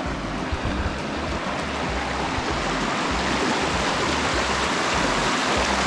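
Steady rush of flowing water, a little louder toward the end.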